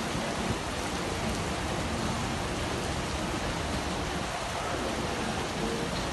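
Heavy monsoon rain falling in a steady, even hiss.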